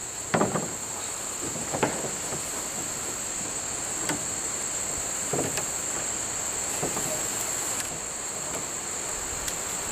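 Steady high-pitched drone of insects, crickets by the sound of it, throughout. A few soft knocks and rustles come from paracord being wrapped and pulled around wooden poles.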